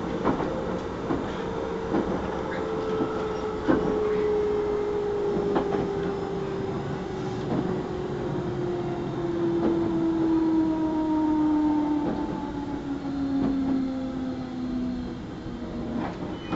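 Running sound inside a JR 211 series 5000 motor car: the motor whine falls steadily in pitch as the train slows, while the wheels click over rail joints at a slowing rhythm. The whine fades out near the end.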